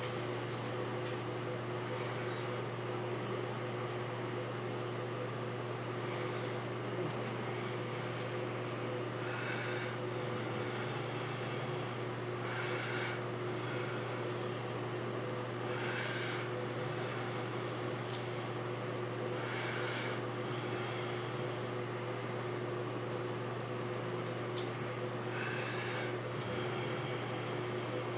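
Steady low mechanical hum with two fainter steady tones above it, broken every few seconds by short scraping handling noises.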